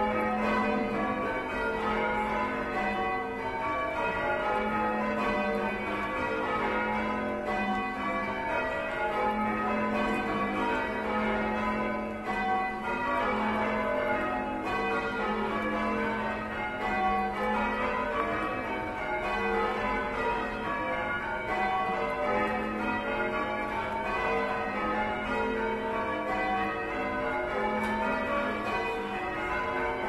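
Full-circle church bells being rung in changes by a band of ringers on ropes: a continuous, even stream of bell strikes, one bell after another in shifting order.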